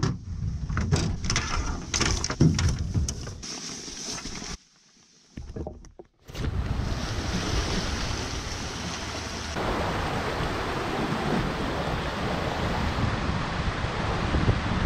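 Wind buffeting the microphone, with a few knocks and clatter; a sharp knock about two and a half seconds in is the loudest. After a brief drop-out about five seconds in, steady surf washes over rocky ledges with wind noise.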